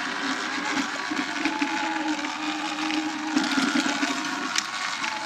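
Sur Ron X electric dirt bike riding along a dirt trail: a steady electric-motor and chain whine over a haze of tyre noise on gravel and leaves, with a few short knocks from bumps.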